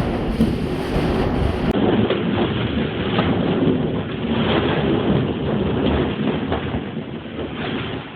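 Hurricane-force wind roaring and buffeting against a metal building, with rain.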